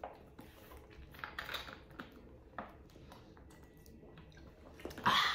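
Plastic PET drink bottles being handled: scattered light clicks and crinkles as a screw cap is twisted off and the bottles are lifted to drink, with a louder short rustle near the end.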